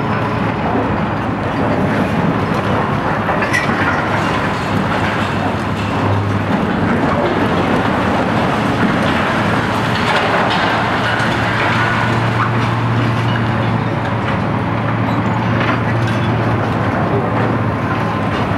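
Heavy diesel excavator engines running steadily under working load, among them the Komatsu PC800-8 high-reach demolition excavator. Scattered cracks and crunches of concrete break and fall as the high-reach tool tears at the top of the building.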